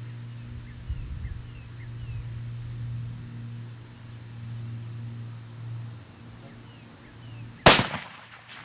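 A single rifle shot from a .45 caliber muzzleloader fitted with a muzzle brake: one sharp crack near the end with a short ringing tail. A steady low hum and faint high chirps lie under it.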